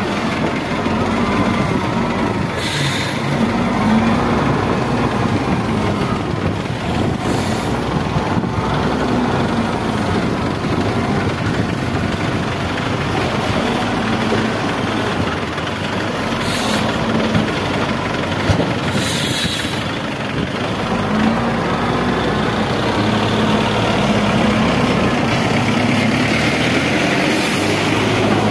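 XGMA wheel loader's diesel engine working under load, its pitch rising and falling repeatedly as the bucket digs, lifts and dumps. There are a few short hisses along the way.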